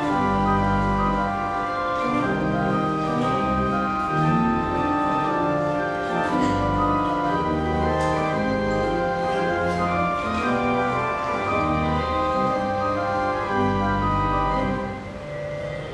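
Church pipe organ playing full held chords over deep pedal notes that change every second or so.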